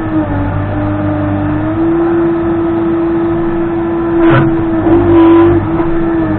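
Case 580N backhoe loader's diesel engine running under work, with a steady whine whose pitch rises slightly about two seconds in. A sharp knock comes about four seconds in, then a short noisy burst a little after five seconds, the loudest moment.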